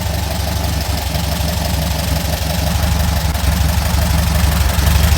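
A VW Fusca (Beetle) 1300 air-cooled flat-four engine idling steadily and evenly, a sign that it is running properly. It grows slightly louder about halfway through.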